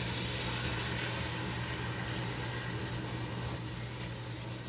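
Ninja Foodi pot on sear/sauté sizzling steadily as two cans of undrained black beans are poured in, over a constant low hum; the sizzle eases slightly toward the end.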